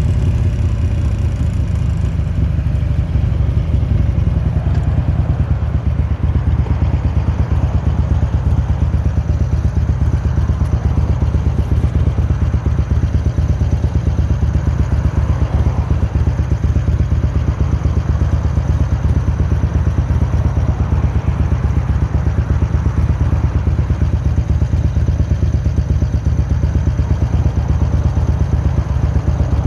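2003 Harley-Davidson Road King's V-twin engine idling steadily, with a squeak at idle whose cause the owner cannot find.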